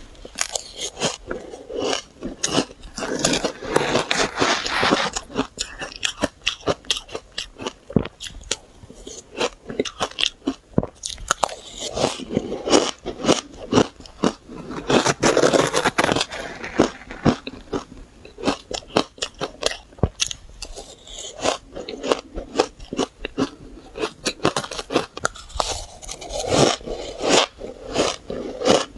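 Close-miked biting and chewing of powdery shaved ice: rapid crisp crunches in quick runs, with short pauses between them.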